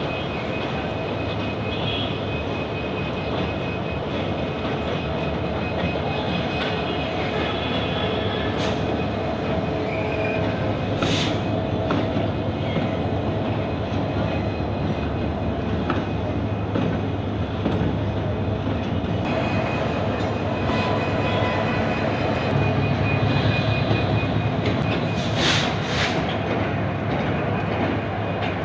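Diesel locomotive running along the tracks: a steady engine hum over the noise of wheels rolling on rail, with a few brief sharp high sounds about eleven seconds in and twice near the end.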